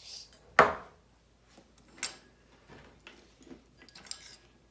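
Knocks and clatter of objects being handled, a sharp loud knock about half a second in, a second knock about two seconds in, then a few fainter clicks.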